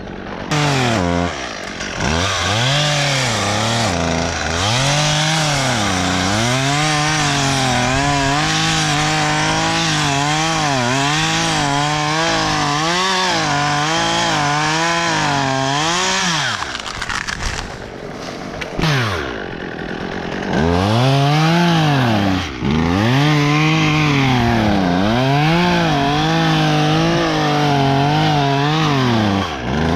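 Gas chainsaw working wood, its engine revving up and dropping back again and again, held at full throttle for several seconds in the middle. It eases off for a few seconds past the halfway point, then revs up and down again.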